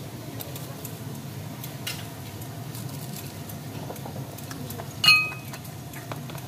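Ceramic bowls and spoons clinking at a noodle stall: scattered light taps, then one sharp ringing clink about five seconds in, over a steady low hum.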